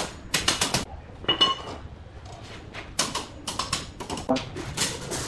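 Steel rebar rods clinking against each other and against a hand bending tool as the bars are bent and set: clusters of sharp metallic knocks, one of them ringing briefly.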